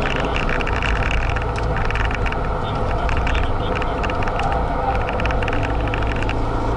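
Renault Mégane RS265's 2.0-litre turbocharged four-cylinder running at a steady pace on track, heard from inside the cabin together with loud road and wind noise and a lot of fine crackling and rattling.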